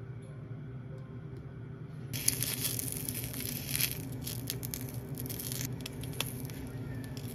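Cut sausages sizzling in oil in a rectangular frying pan. The sizzling starts about two seconds in, with light clicks of bamboo chopsticks against the pan, over a steady low hum.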